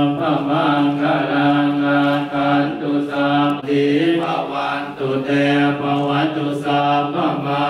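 Thai Buddhist monks chanting Pali verses together in unison, a low steady drone on one pitch with only slight shifts.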